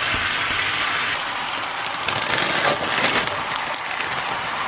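Chicken and vegetables sizzling in a hot wok, a steady hiss full of fine crackles, as they are stirred with a wooden spatula.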